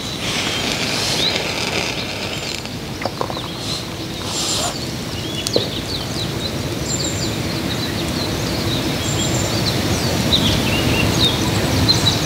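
Wild birds chirping in many short, quick notes, busier in the second half, over a steady low outdoor rumble, with a couple of light knocks.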